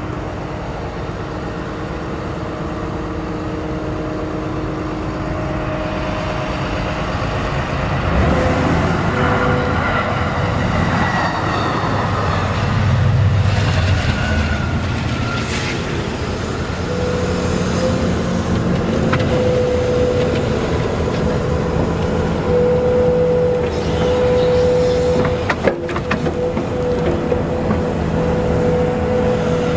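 Excavator engine and hydraulics running steadily as a screening bucket works. An Amtrak passenger train passes in the middle, adding a louder rumble whose pitch falls as it goes by. From about halfway on, a steady whine sits over the engine.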